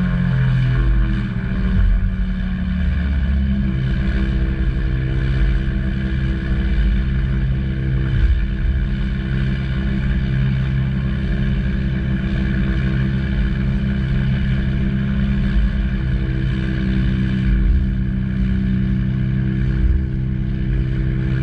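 Beechcraft Bonanza G36's six-cylinder piston engine and propeller running steadily, heard from inside the cockpit, with a slight shift in pitch in the first few seconds.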